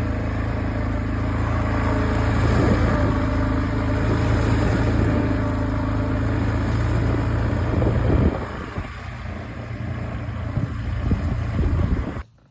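Four-wheeler (ATV) engine running steadily, dropping back to a quieter level about eight seconds in, then cutting off abruptly near the end.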